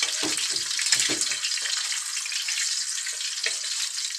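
Red sausages sizzling in hot oil in a frying pan, a steady hiss, with a few short knocks of the spatula against the pan in the first second or so.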